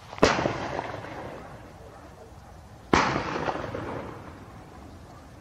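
Two hunting gunshots about two and a half seconds apart, each followed by a long echo dying away over about a second and a half.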